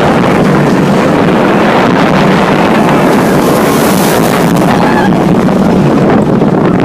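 Wind rushing over the phone's microphone and the roll of the Corkscrew's train on its steel Arrow Dynamics track, loud and steady, as the front car runs through the inversions at speed.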